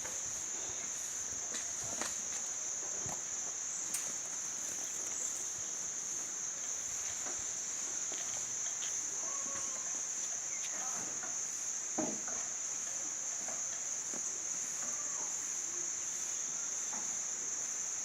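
Insects keeping up a steady high-pitched chorus, with a few scattered clicks and knocks, the sharpest about four seconds and about twelve seconds in.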